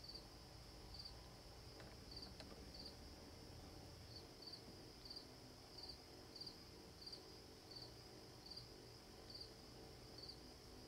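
Faint insects chirping: short chirps about every two-thirds of a second over a steady high insect hum.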